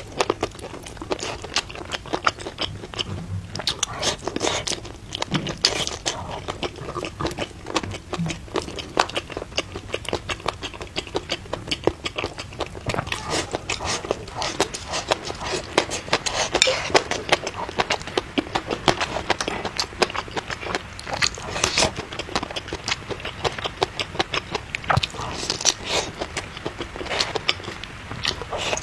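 Close-miked eating sounds: a person biting and chewing, with many quick sharp clicks and wet mouth smacks coming irregularly.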